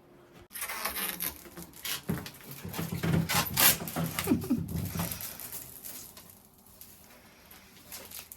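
Handling noise: a run of light clicks, taps and rustles, busiest from about half a second to five seconds in, then fading to quieter rustling.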